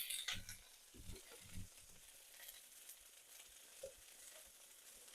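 Faint sizzling of egg fried rice with green beans being stir-fried in a pan. There are a few soft knocks of the spatula in the first two seconds.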